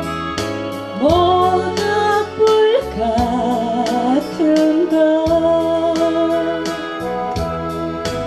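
A song performed live: a singer's voice, sung with vibrato and entering about a second in, over keyboard chords and a steady beat.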